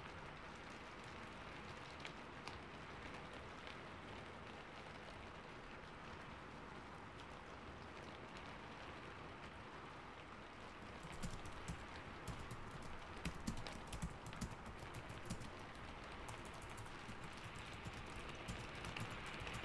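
Steady rain with computer keyboard typing; the rapid key clicks begin about halfway through and continue to the end.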